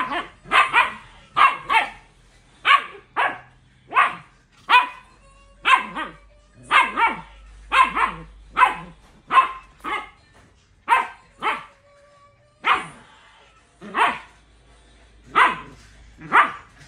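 Siberian husky puppy barking over and over in play, with short barks at about one or two a second, often in quick pairs and with a brief pause about three-quarters of the way through.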